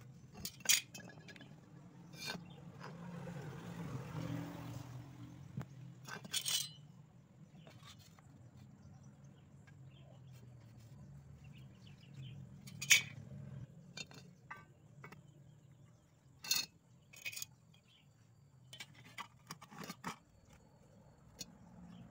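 Scattered light metallic clinks and taps as a steel rule and square are handled and set against a steel tube, with a soft scrape a few seconds in; the sharpest clink comes about halfway through.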